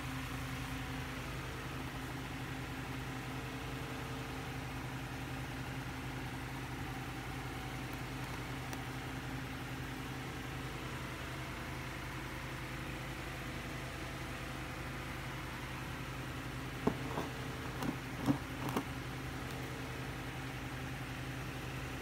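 Steady low machine hum, like a motor or appliance running. A few short knocks come late on.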